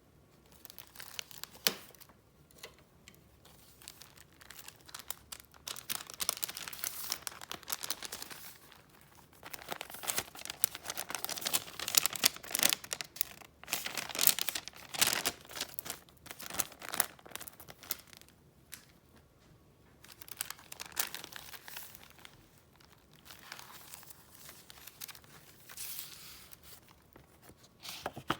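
Paper crinkling and rustling as it is handled, in several bursts with short pauses between them, loudest around the middle.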